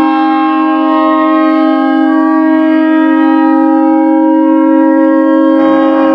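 Hockey arena goal horn sounding one long, steady blast at a single pitch.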